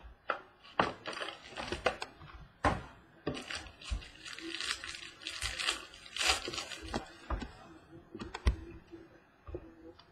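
A trading-card box being opened and its plastic-wrapped pack unwrapped: cardboard and plastic wrapper rustling and crinkling, with a run of clicks and taps against a wooden tabletop. The crinkling is densest about halfway through.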